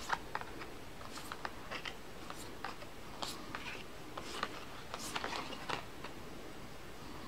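Tarot cards being dealt one after another onto a wooden table: irregular light taps and brief swishes of card sliding on wood.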